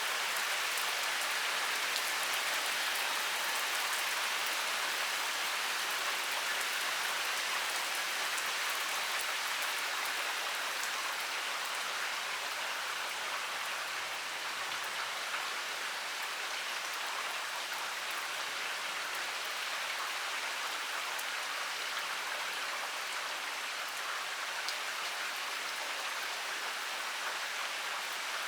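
Heavy rain pouring steadily, a dense hiss of drops with fine patter from individual drops striking surfaces.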